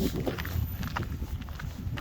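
Footsteps in fresh snow, a steady walking pace of about two steps a second, over a low rumble.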